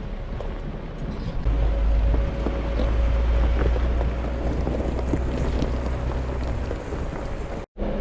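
Off-road vehicle driving on a rough dirt trail, heard from inside the cab: a steady engine and tyre rumble that deepens about a second and a half in, with scattered knocks and rattles. The sound cuts out for an instant near the end.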